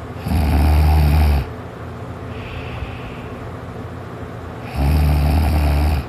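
A sleeping person snoring: two loud, low snores about four and a half seconds apart, each a little over a second long, with a fainter hiss between them.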